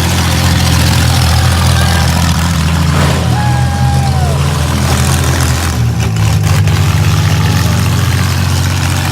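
Minivan engines running loud and revving during a demolition derby, with a short falling squeal about three seconds in.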